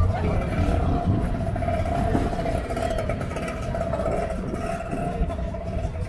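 A car engine running steadily with a deep, low rumble and a steady mid-pitched hum over it.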